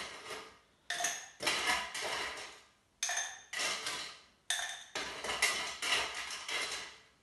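Ice cubes clattering as they are scooped from an ice bucket and dropped into a glass, in three rounds of sudden rattles, each round two clatters about half a second apart.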